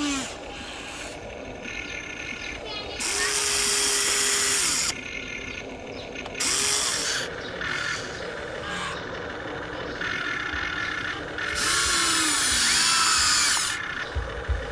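Small electric motors of radio-controlled construction models whirring in bursts of one to two seconds, each with a steady whine, separated by quieter stretches.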